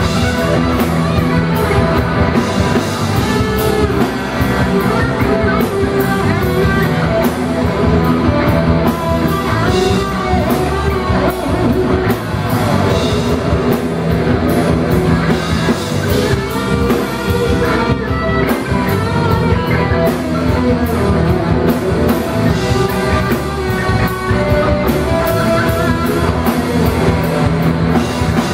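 Live rock band: electric guitar played on a double-neck guitar over bass guitar and a drum kit.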